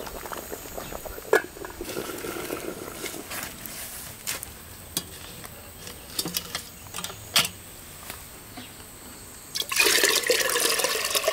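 Scattered light knocks and clicks, then about nine and a half seconds in, water starts pouring loudly into a container.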